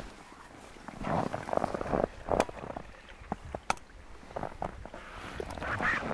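Slush and water being scooped out of a freshly augered hole in lake ice, first by gloved hand and then with a metal pot: irregular splashing and slushy scraping, with a few sharp clicks about two to four seconds in.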